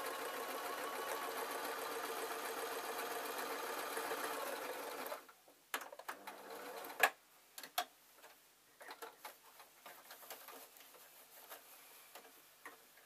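Electric sewing machine stitching steadily for about five seconds, then stopping suddenly. After it, scattered clicks and taps, with one sharp click about seven seconds in.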